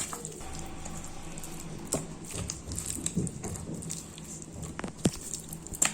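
Hands mixing raw chicken strips with spice powders and ginger-garlic paste in a bowl for a marinade: soft, wet squishing with a few light clicks.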